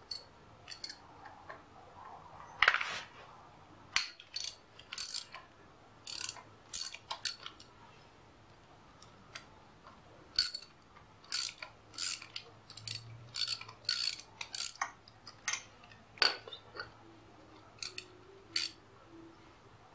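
Hand socket ratchet clicking in short, irregular runs as a 10 mm bolt on a motorcycle cylinder head is worked loose, with one louder clack about three seconds in.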